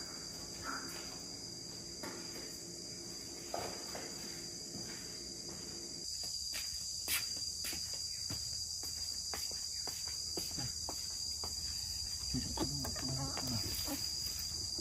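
Steady, high-pitched drone of an insect chorus, with a run of faint light taps in the second half.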